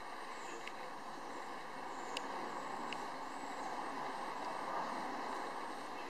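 Steady outdoor background noise that swells a little in the middle, with a few faint high chirps and light ticks over it.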